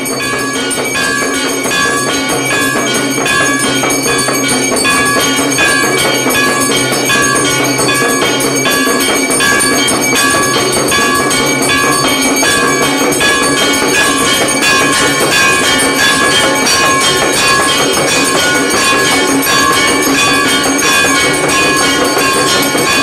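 Hanging brass temple bells rung over and over without a break for the evening aarti, a loud, steady clanging with strokes repeating about every half second.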